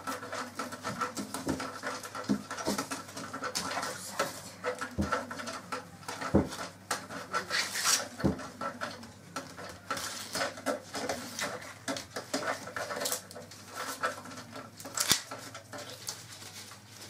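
Fresh green husks rustling and tearing as ears of sweet corn are stripped by hand over newspaper, with crackles and a few dull knocks.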